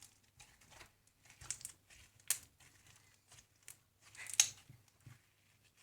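Glue-and-borax slime being squeezed and stretched by hand, squishing and crackling in short irregular bursts, with louder pops about two seconds in and about four and a half seconds in.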